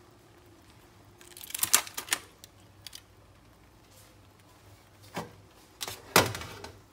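Aluminium foil crinkling and crackling as it is handled around a foil-wrapped baked fish, in two bursts of sharp crackles, about one and a half seconds in and again near six seconds in.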